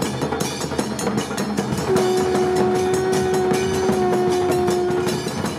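A conch shell blown in one long steady note, held for about three seconds from about two seconds in, over fast drumming on stick-played drums and clashing hand cymbals.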